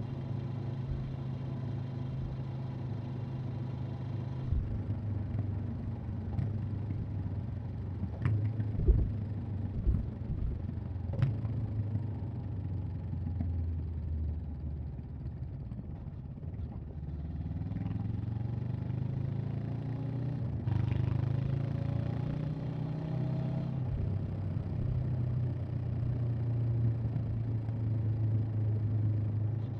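Honda CB500X parallel-twin engine and exhaust under way, heard from the rider's position. It runs steadily, with a few sharp knocks along the way. Partway through, the revs fall away and then climb again, with shifts a little later.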